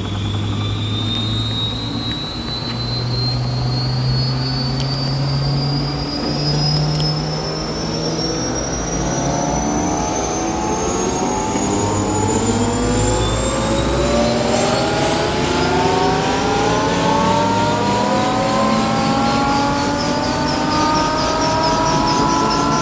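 Bell 212 helicopter's twin turboshaft engines (Pratt & Whitney PT6T Twin-Pac) spooling up during start: a high turbine whine climbing steadily in pitch, with a lower set of rising tones joining about halfway through as the drivetrain comes up to speed.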